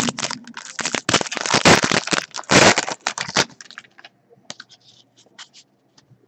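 Foil trading-card pack being torn open and crinkled, a dense crackling for about three and a half seconds, then a few faint ticks as the stack of cards is handled.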